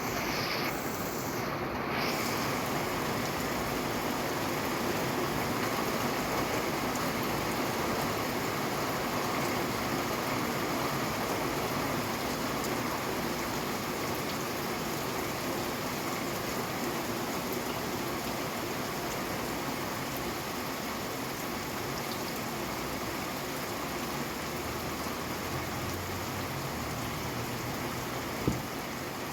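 Steady rain falling, an even hiss with no let-up. One sharp knock sounds near the end.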